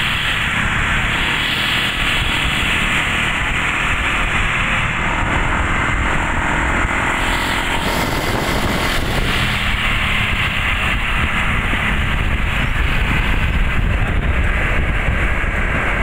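Scania tour coach's diesel engine running as the bus rolls slowly past at close range, a steady engine rumble and road noise.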